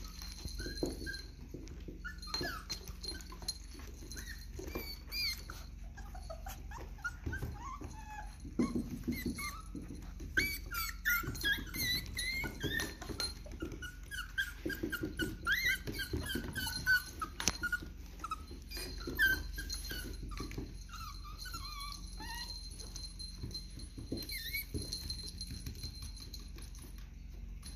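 Miniature dachshund puppies yipping and whining in short, high-pitched squeaks as they play together, the cries coming thick and fast in the middle and thinning out toward the end.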